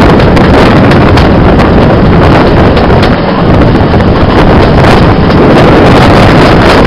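Wind buffeting a microphone held out of the window of a moving passenger coach, very loud and close to overloading, over the running noise of the train.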